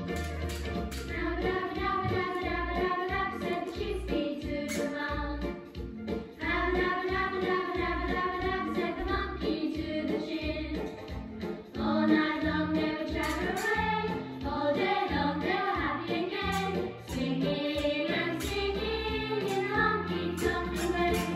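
A song with a singing voice over a steady beat.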